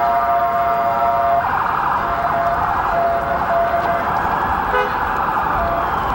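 Emergency vehicle sirens in the street. A steady held siren tone cuts off about a second and a half in, and a broader siren wash carries on with short returns of the tone.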